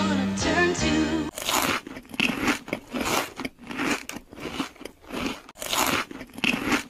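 Crunching bites into crispy fried chicken, repeated over and over at a few bites a second, after a brief snatch of melody at the start.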